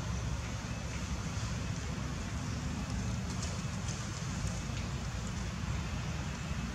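Steady outdoor background noise: a low rumble with an even hiss over it, and no distinct calls or impacts.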